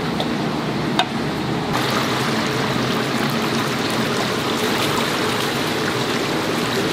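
Chicken deep-frying in oil in a cast-iron cauldron (gamasot): a steady sizzle that turns brighter and hissier about two seconds in.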